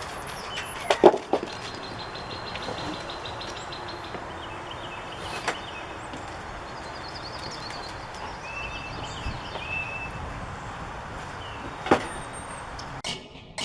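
Outdoor ambience: a steady rushing noise with a few short bird chirps, broken by sharp knocks about a second in and again near the end.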